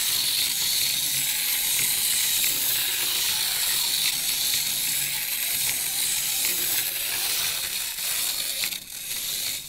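Clockwork wind-up motor of a small plastic toy fire engine whirring steadily as it drives over a plastic track, faltering near the end.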